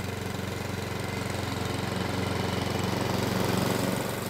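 Webb WER410HP petrol rotary lawn mower's 132cc OHV four-stroke engine running steadily as it is pushed across the lawn, mowing.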